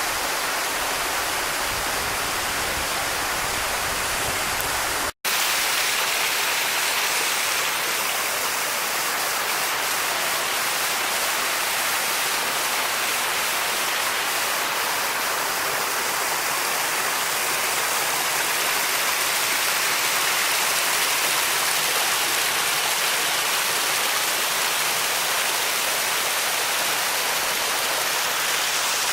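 Creek water rushing over a small waterfall, a steady, even rush, broken by a split-second dropout about five seconds in.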